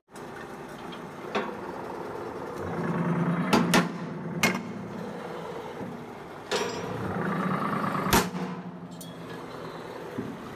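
Hydraulic iron worker press running: the power pack hums steadily and its note strengthens twice as the ram works through steel square tube. Sharp metallic cracks and clanks come with each stroke, the loudest just after the second one.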